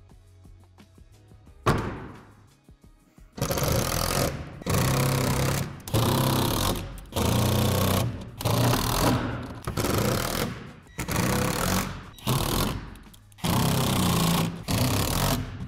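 A panel knocks into place once, then a cordless power driver runs in repeated bursts of about a second each, driving screws through a plastic shed's wall panels to fasten neighbouring panels together.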